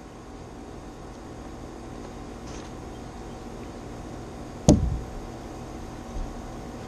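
A cardboard box being cut open and handled, with soft rustling over a steady background hiss and one sharp knock about two-thirds of the way through.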